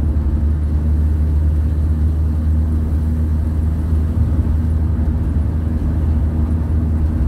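Volkswagen Kombi camper van driving at a steady speed: an even, low engine drone with road rumble.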